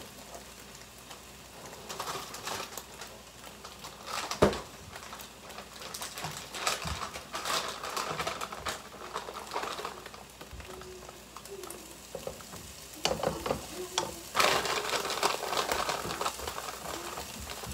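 Eggs sizzling as they fry in a pan on the stove, with light kitchen clatter and a sharp knock about four and a half seconds in.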